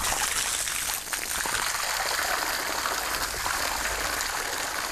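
A steady jet of water spraying onto muddy ground and pigs, a continuous splashing hiss.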